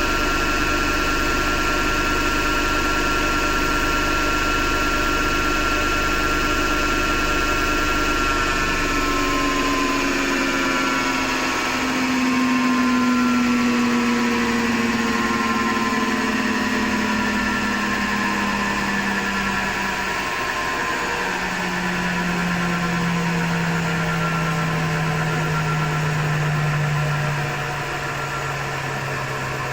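Hotpoint Ariston FMD963 washing machine spinning at speed with a steady whine of several tones. From about nine seconds in, the pitch falls steadily as the machine winds down. This is the grinding noise that the owner thinks comes from the motor rather than the drum.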